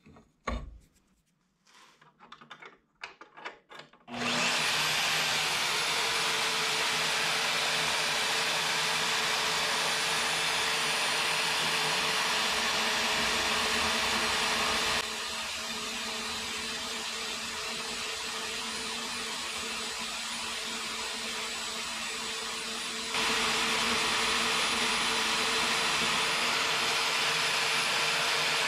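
Hercules 11-amp variable-speed portable bandsaw starting about four seconds in and running steadily, cutting through 3/8-inch steel plate, after a few light clicks. The sound drops abruptly to a lower level for several seconds in the middle, then steps back up.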